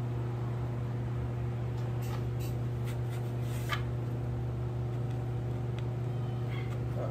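A steady low mechanical hum, with a few faint short scratches and light ticks a couple of seconds in, as of a pencil marking a sheet of MDF.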